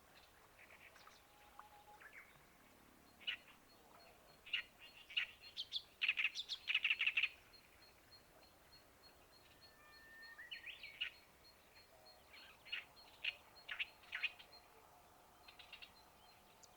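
Small birds chirping and calling in short irregular bursts, busiest about six to seven seconds in, with a faint, fast, even high ticking running behind them through the middle.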